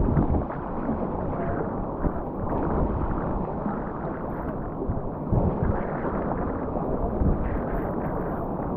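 Wind buffeting the microphone over sea water sloshing against a sea kayak, with a few short louder swells.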